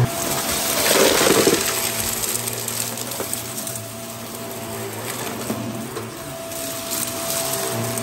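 Vax Mach Air upright vacuum cleaner running over a rug as it sucks up wood chips, with a burst of crackling debris about a second in over a steady motor whine.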